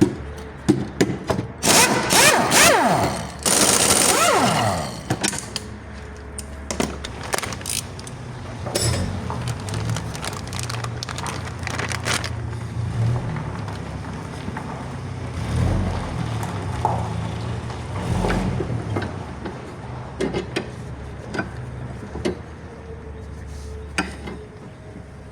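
Metal-on-metal workshop noise from hand tools working on a car's suspension: scattered clicks, knocks and clanks, with a loud stretch of scraping and rattling in the first few seconds, over a low steady hum.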